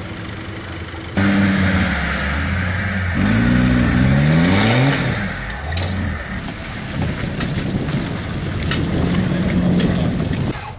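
A competition car's engine revving hard, its pitch rising and falling several times, with a few sharp clicks later on. The sound starts abruptly about a second in.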